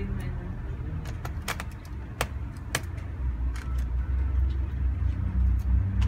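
Small clicks and clinks of screws and a screwdriver being handled at a clear plastic screw box on a laptop's plastic underside, a handful of sharp clicks with the loudest around two to three seconds in. A steady low rumble runs underneath.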